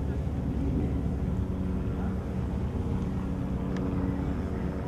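A steady low engine drone running at an even pitch.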